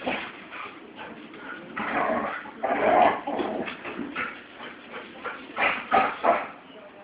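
A dog vocalizing in a series of short, irregular bursts, loudest about three seconds in and again near six seconds.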